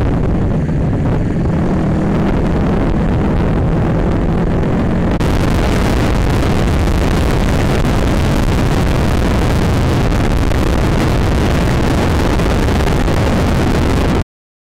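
Motorcycle riding through traffic: a KTM Duke 200's single-cylinder engine running under heavy wind rush on the bike-mounted camera's microphone. About five seconds in the rush turns harsher and brighter, and all sound cuts off just before the end.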